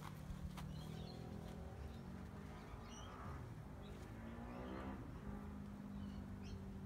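A few short bird chirps over a steady low hum; a second hum rises and falls in pitch around the middle.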